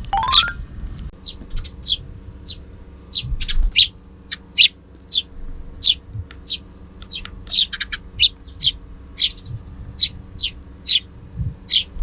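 Sparrows chirping: short, high chirps repeated about twice a second, over a faint steady hum. A quick rising glide sounds right at the start.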